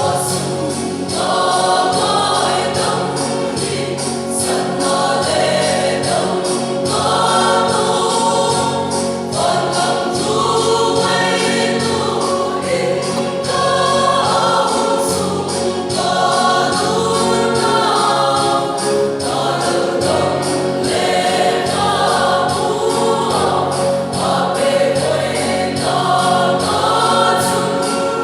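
A choir singing a gospel song over instrumental backing with a steady beat.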